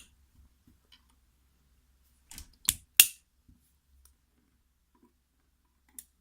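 A few sharp clicks of small metal lock parts being handled while a pin-tumbler cylinder is taken apart: three close together about two and a half seconds in, and one more near the end.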